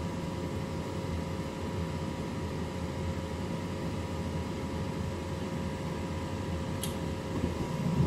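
Gas furnace running with its burners lit: a steady rush of burner and fan noise with a faint steady hum, on one of its intermittent attempts to stay lit. A brief tick comes about seven seconds in.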